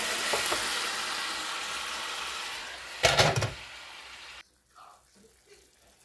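Apple pieces poured into hot buttery liquid in a pot on the stove, hissing and sizzling steadily. About three seconds in there is one loud clunk, and a second later the hiss cuts off suddenly.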